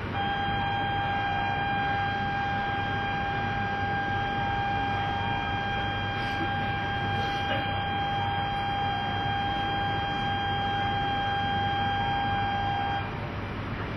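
A steady electronic buzzer tone on one pitch, sounding for about thirteen seconds and then cutting off, over the station's low background hum.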